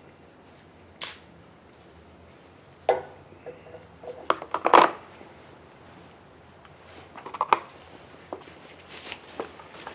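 Small metal engine parts and tools clinking and being set down on a bench: a string of light knocks and clinks, some of them ringing briefly, the loudest cluster a little before the middle.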